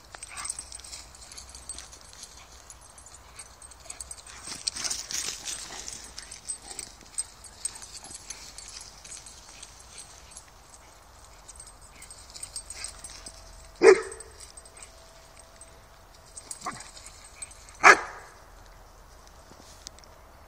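A dog barking twice, two short sharp barks about four seconds apart in the second half, with quieter rustling before them.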